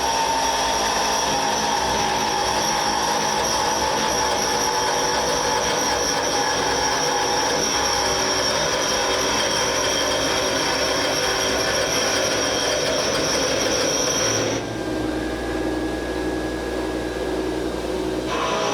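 Forest Scientific WL-4000 CNC wood lathe turning a wooden bat: a steady high whine over the rough noise of the tool cutting the spinning blank. About fourteen seconds in, the cutting noise drops away to a quieter machine hum with a thin tone, and the cutting starts again near the end.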